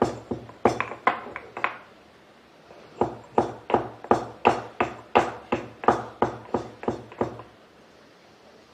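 Black peppercorns being crushed by pounding: sharp, regular knocks about three a second. They stop briefly a couple of seconds in, then resume for about four more seconds before stopping.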